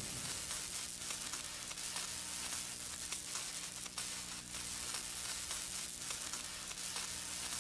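Electric crackling sound effect, a steady sizzle with small snaps, over a low steady hum.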